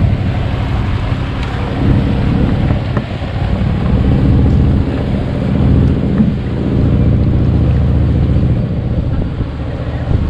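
Strong wind buffeting the microphone: a loud, uneven low rumble that rises and falls.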